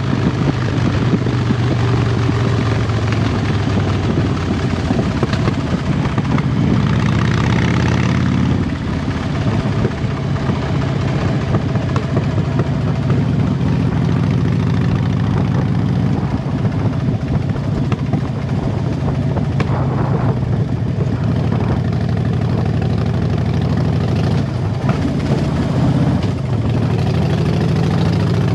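2007 Harley-Davidson Dyna Super Glide Custom's 1584 cc Twin Cam V-twin running under way through Vance & Hines exhaust pipes. The exhaust note drops back a little about eight seconds in and builds again from about twenty seconds in.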